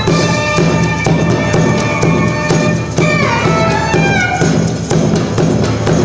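Violin playing a melody with notes sliding downward about halfway through, over a steady drum beat.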